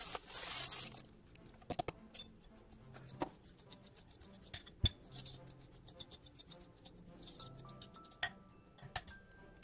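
Dry corn muffin mix poured from a cardboard box into a wooden bowl, a brief hiss in the first second. Then a spoon stirs and scrapes through the dry mix, clicking and tapping against the bowl many times. Faint background music comes in near the end.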